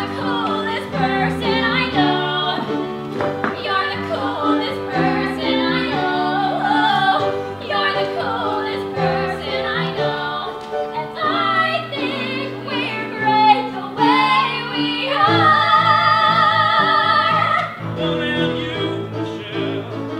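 Two women singing a duet from a pop-styled musical-theatre number over instrumental accompaniment, with a long held, wavering note about fifteen seconds in.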